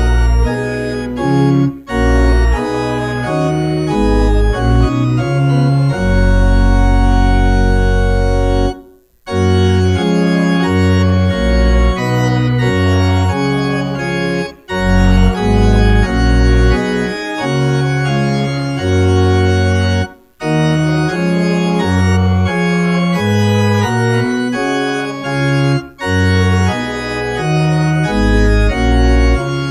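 Church organ playing a hymn tune in held chords, line by line, with a brief break between phrases about every five to six seconds.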